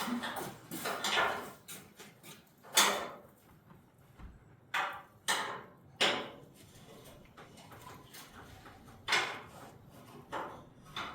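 Wrench working a stubborn fender bolt on an old truck: a string of short metallic scrapes and knocks at irregular intervals.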